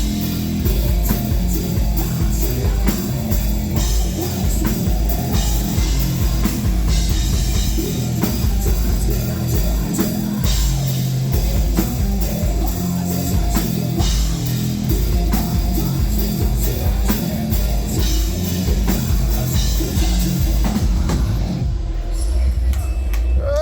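A metal band playing live: pounding drums and distorted guitars over a heavy low end. The cymbals drop away shortly before the end.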